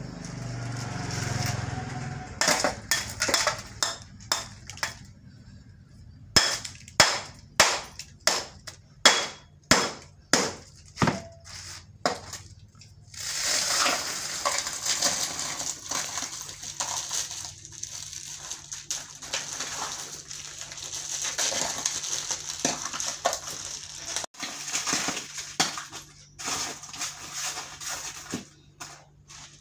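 Block ice being broken up into a plastic-lined bucket for the ice-and-salt bath of an es puter churn: a run of about a dozen sharp cracking knocks, then a long stretch of crunching ice and rustling plastic.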